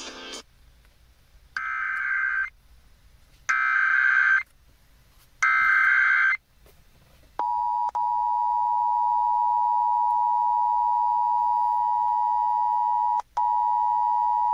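Emergency Alert System tones: three short bursts of SAME digital header data, each about a second long and a second apart, then the two-tone EAS attention signal, held steady from about seven seconds in with two brief dropouts. Together they announce an incoming emergency alert, here a tornado warning.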